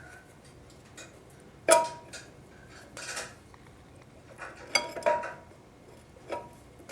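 Screwdriver and steel case snap ring clinking and scraping against a 4L60E transmission case as the ring is pushed into its groove. A string of sharp metallic clinks, the loudest nearly two seconds in with a brief ring.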